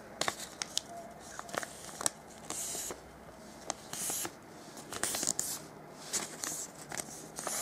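Glossy origami paper (papel charol) being handled and folded by hand: many short crisp crackles and creasing clicks, with a few longer rustles as the sheet is turned and pressed.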